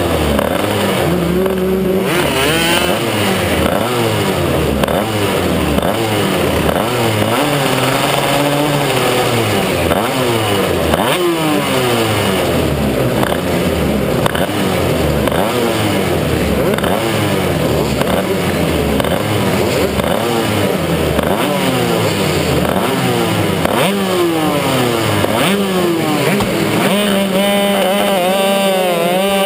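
Racing kart engines revving hard and dropping off again and again through the corners, the pitch climbing and falling every second or two, with several engines sounding at once. Near the end the engine sound settles into a steadier held note.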